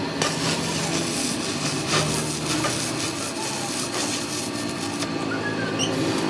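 Rasping scrape of metal being cut or filed by hand during a motor shaft repair, stopping about five seconds in, over a steady low workshop hum.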